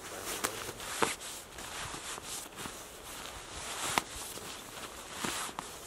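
Synthetic-shell sleeping bag rustling and swishing as it is folded and stuffed by hand into its stuff sack, with a few sharp clicks among the rustling.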